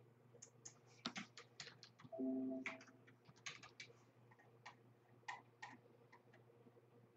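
Faint, irregular clicking of keys being typed on a computer keyboard, with a short low hum a little after two seconds in.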